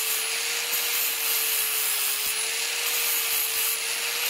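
Angle grinder with a flap disc running steadily, sanding the paint off a steel bar down to bare metal to prepare it for welding. A steady grinding hiss with an even motor whine under it.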